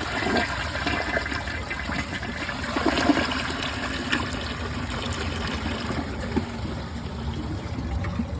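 Mansfield Summit dual-flush toilet flushing: water rushing and swirling through the bowl as it strains for a moment to clear a test load.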